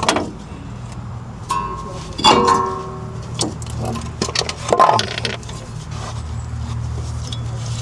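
Metal tools and parts clinking and clattering, with a string of sharp clicks and a brief ringing sound about two seconds in, over a steady low hum.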